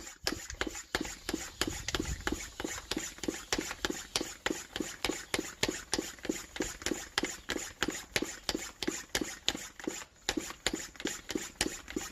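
Yamaha Mint scooter's small two-stroke engine running at idle just after it has been got to start, with a steady, even pulsing of about five or six beats a second.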